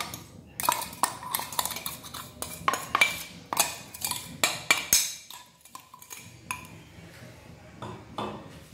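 A steel spoon scraping and tapping inside a stainless-steel mixer-grinder jar, and the jar knocking on the rim of a steel bowl, as ground mung dal is emptied out. A quick run of metallic clinks and knocks for about five seconds, then only a few scattered ones.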